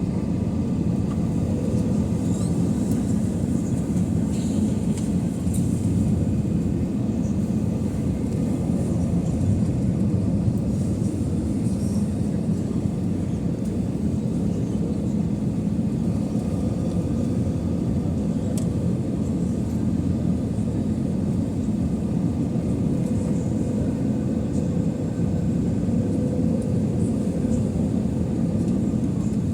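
Steady cabin rumble of an Airbus A320 in flight on its approach, the engines and airflow heard from inside the passenger cabin.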